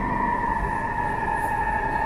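Electric whine of a Hyundai-built driverless metro train arriving at the platform, with two tones that sink slightly in pitch over the first second and then hold steady over a low rumble as the train brakes into the station.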